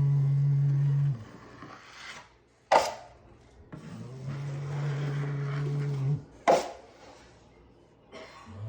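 Drywall knife dragged side to side through setting joint compound on a sheetrock patch, in long strokes of about two seconds that each carry a rough scrape with a steady low hum. Two sharp knocks come in between the strokes, one a little under three seconds in and one about six and a half seconds in.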